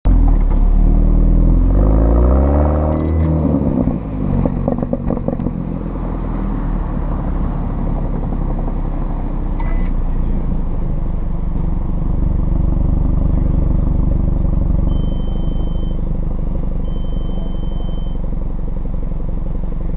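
Exhaust of a 2013 BMW F30 328i, a turbocharged 2.0-litre four-cylinder, through an M Performance exhaust, heard right at the tailpipes. The engine revs up hard for the first few seconds, drops off with a short stretch of rough crackling, then settles into a steady cruising drone.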